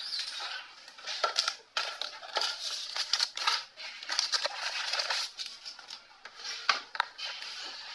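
Close rustling and scraping with scattered sharp clicks: handling noise of a phone microphone rubbing against hair and clothing as it is moved about.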